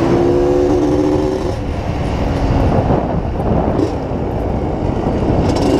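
Yamaha DT 180 two-stroke engine running under a rider. The engine note is steady for about the first second and a half, goes uneven and less distinct in the middle, and rises again near the end as the revs climb.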